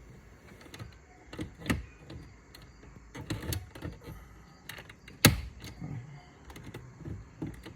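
Irregular clicks and knocks of tools being handled and set down, with one sharper, louder knock about five seconds in.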